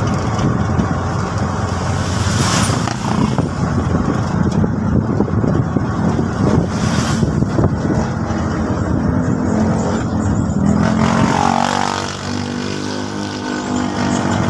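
TVS King Deluxe three-wheeler's engine running while under way, heard from inside the cab along with road noise. About eleven seconds in, the engine note shifts and gets slightly quieter.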